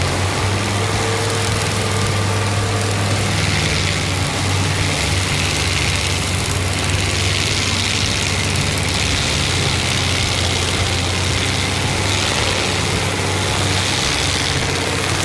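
Tree-mulching machine with a grinding head working on a tree trunk: its heavy engine runs with a steady low drone under a constant hiss of shredding.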